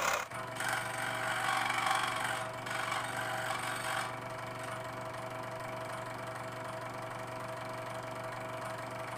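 Modern M-400A scroll saw running, its motor and reciprocating blade giving a steady hum with a fast, even pulse. The sound is louder and noisier for about the first four seconds, then settles to steady running.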